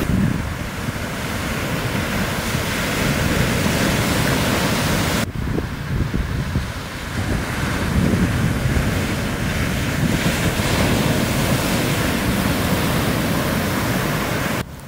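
Shore-break waves breaking and washing up the sand in a steady low roar, with wind buffeting the microphone. The sound breaks off briefly about five seconds in and drops quieter near the end.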